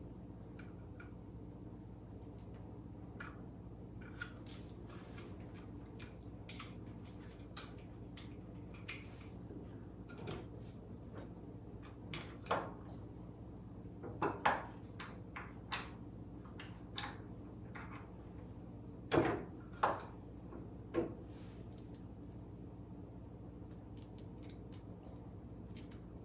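Scattered metallic clinks and knocks of metal parts and hand tools being handled, a dozen or so at irregular intervals, over a steady low hum.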